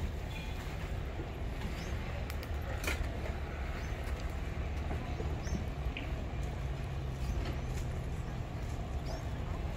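Street ambience: a steady low rumble of road traffic, with a few faint scattered clicks and knocks.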